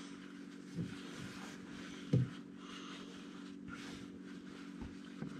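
A few faint knocks and clicks of a wrench working the oil drain plug loose under a Kubota ZD326 zero-turn mower, one louder knock about two seconds in, over a steady low hum.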